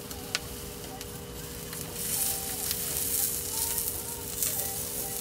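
Chicken and green-onion skewers sizzling on a grill, the sizzle growing louder about two seconds in, with one sharp click near the start.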